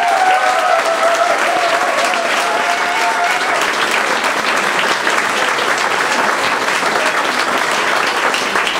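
Audience applauding steadily, with a few drawn-out cheers from voices in the crowd over the clapping for the first three seconds or so.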